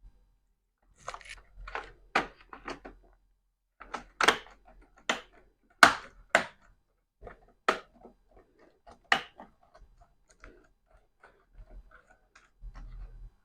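Irregular sharp plastic clicks and snaps of a laptop keyboard being handled and pressed into its clips. The clicks come thickest in the first nine seconds, then thin out.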